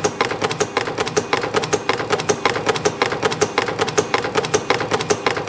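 A YHM CT-208 micro CNC spring machine forming torsion springs from 0.5 mm wire: a fast, even run of sharp mechanical clicks, several a second, over a steady hum.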